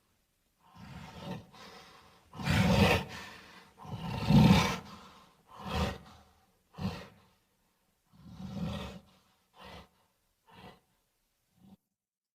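Gorilla vocal sound effect: a series of about ten calls, the loudest about four seconds in, followed by shorter and fainter calls that taper off near the end.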